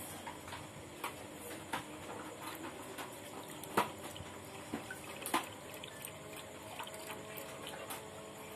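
Dog lapping milk from a steel pot: irregular wet lapping with a few sharper clicks, the loudest about four seconds in.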